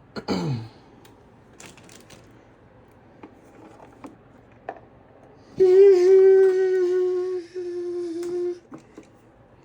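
A man humming one steady, sustained note for about three seconds, with a short break partway, preceded by a brief falling vocal sound and a few faint clicks.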